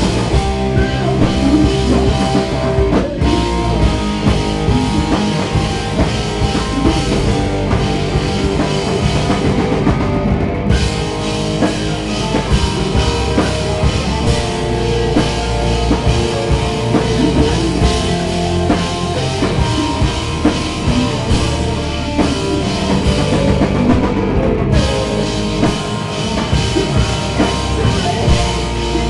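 Live rock band playing loud, with a driving drum kit and guitars; twice the top end briefly drops away, as if the cymbals stop for a moment.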